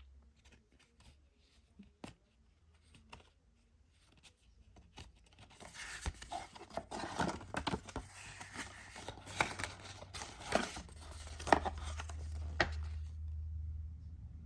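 Packaging being opened by hand: a few light clicks and taps, then from about five seconds in a stretch of rustling and tearing with sharp clicks that stops about thirteen seconds in. A low hum rises toward the end.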